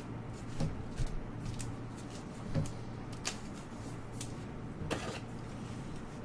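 Trading cards and their pack packaging being handled: scattered light clicks and crinkles, a few sharper ones, over a steady low hum.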